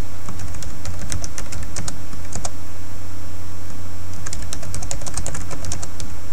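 Typing on a computer keyboard: a loose run of keystrokes, a pause of about two seconds, then a faster run of keystrokes near the end, over a steady low hum.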